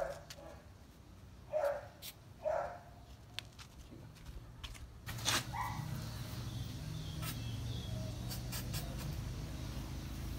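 A dog gives two short yelps about one and a half and two and a half seconds in while its head wound is being treated. Later come a few brief hisses from the aerosol wound spray held against its head.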